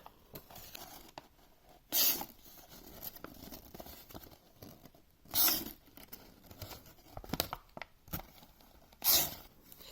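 Freshly sharpened Victorinox Evolution S14 knife blade making three short slicing cuts, about three and a half seconds apart, in a cutting test of whether the edge is sharp enough.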